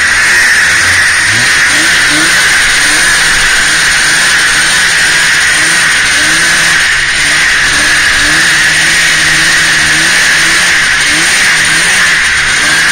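A snowmobile's two-stroke engine revving up and down over and over as it pulls away and rides along, heard over a steady high hiss.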